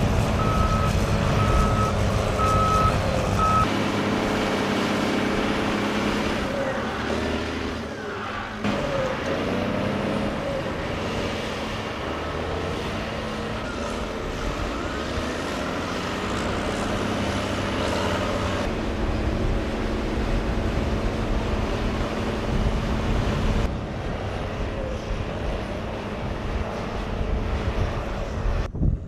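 Diesel engines of armored tracked bulldozers running as they push sand. A reversing alarm beeps about once a second for the first few seconds.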